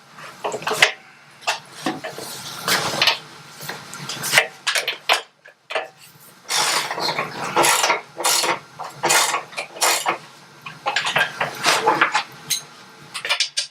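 Repeated metal clinks and knocks as a motorcycle rear wheel and its axle are worked back into place.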